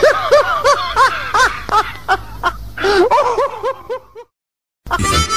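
Laughter after a joke's punchline: a voice going 'ha-ha-ha' in quick repeated rises and falls, fading out after about four seconds. After a short silence, harmonica music starts near the end.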